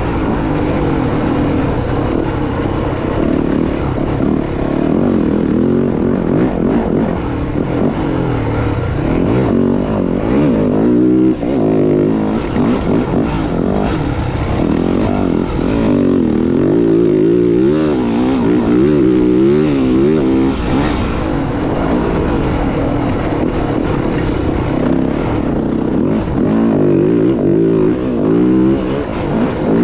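Dirt bike engines revving up and down over and over, the pitch rising and falling quickly with the throttle.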